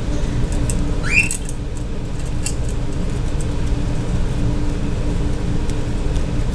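A steady low rumble throughout, with one short, upward-sliding chirp from a pet budgerigar about a second in and a few faint clicks after it.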